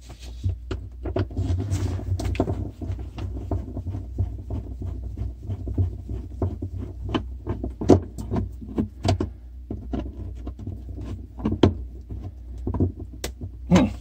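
A screwdriver and hands working screws out of a refrigerator's plastic rear evaporator cover panel: many small irregular clicks and knocks of metal on screw heads and plastic. A steady low hum runs underneath.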